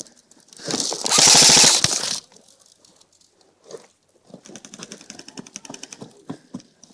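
Airsoft rifles firing on full auto: a loud rapid burst of about a second and a half near the start, then fainter rapid strings of shots in the second half.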